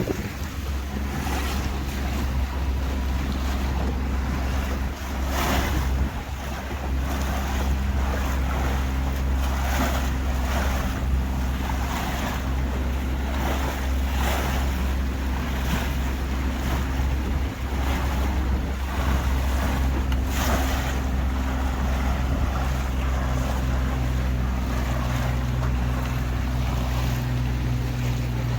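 Tour boat's engine running steadily under way, with water slapping and splashing against the hull about once a second for much of the time, and some wind on the microphone.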